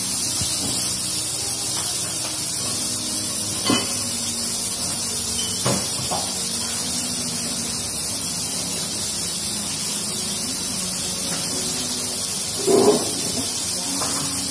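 Raw chicken breast fillets sizzling in a hot ridged grill pan: a steady hiss, with a few light knocks, the loudest near the end.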